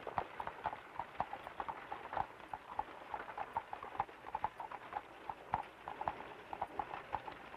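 A horse's hooves clip-clopping on a hard road, a steady run of knocks several times a second.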